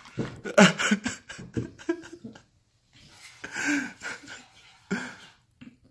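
Breathy chuckles and heavy breathing, in short irregular bursts with a few clicks, from a boy whose mouth is burning from spicy noodles.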